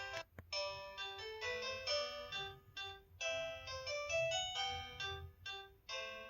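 Samsung SCH-X600 flip phone playing one of its built-in melody ringtones through its small speaker: a quick electronic keyboard-like tune in short phrases, with brief breaks between them.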